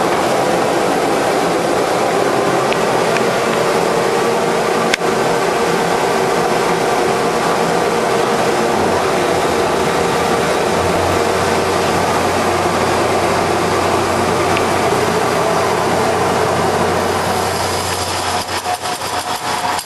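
CL-1500B hydraulic copying lathe running steadily, with one sharp click about five seconds in. Near the end the sound changes to a rapid, regular pulsing.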